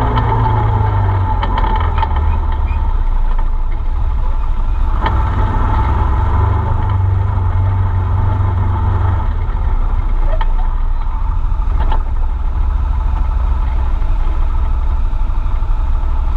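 Arctic Cat Wildcat side-by-side UTV driving on a dirt trail, heard from inside the open cab: a steady, deep engine drone with a few brief knocks along the way.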